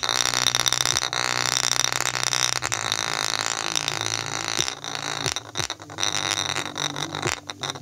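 JBL portable speaker pushed hard with deep bass, distorted and buzzing, while a golf ball resting on its driver bounces and rattles against it.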